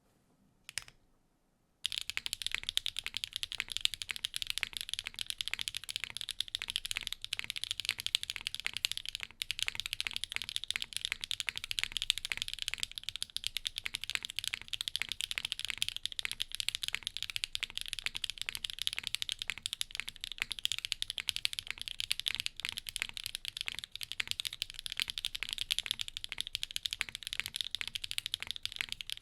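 Neo65 Cu mechanical keyboard with a carbon-fibre plate and HMX Tequila switches being typed on quickly and continuously, a dense stream of keystroke clacks. A single keypress comes first, and the steady typing starts about two seconds in.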